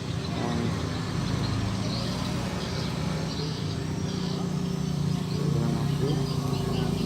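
Honda Tiger single-cylinder motorcycle engine idling steadily, swelling slightly in the second half.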